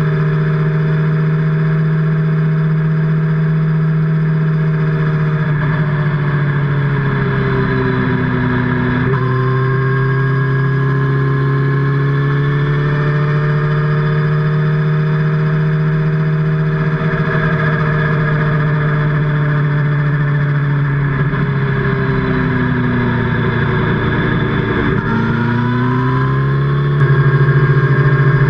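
Sport motorcycle engine and exhaust running at a steady cruise, heard close to the muffler. The note twice sags as the throttle is eased and picks back up. Near the end it rises and gets louder as the rider opens the throttle.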